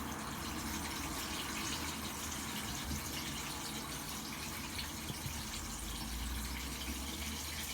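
Cornstarch-coated chicken legs deep-frying in hot oil, a steady sizzle.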